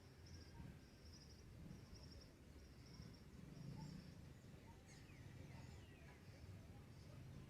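Faint dawn countryside ambience: a high, buzzy chirp repeated roughly once a second, fading after about four seconds, with a few short bird chirps over a low rumble.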